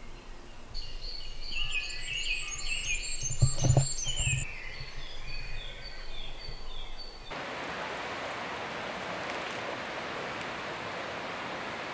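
Woodland birdsong, a bird repeating quick, high, falling phrases, with a brief low thumping rumble about three and a half seconds in. About seven seconds in it cuts to the steady rush of a shallow stream.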